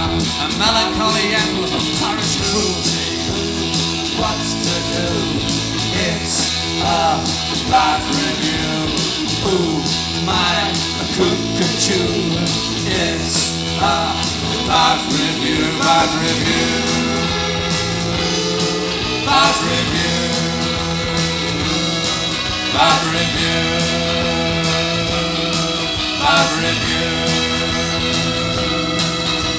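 Live rock band playing a song on electric guitar, bass guitar and drums, with bending, wavering guitar notes over a steady beat.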